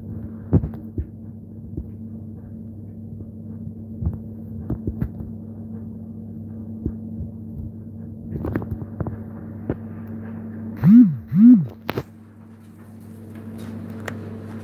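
A steady low hum, with scattered knocks and clicks from the phone being handled. About eleven seconds in come two short, loud sounds that rise and fall in pitch, one right after the other.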